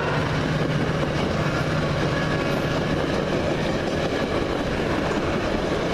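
Metra commuter train passing close by, its wheels clattering quickly over the rail joints with a steady rushing rattle. A low drone underneath fades out about four seconds in. Heard from inside a locomotive cab.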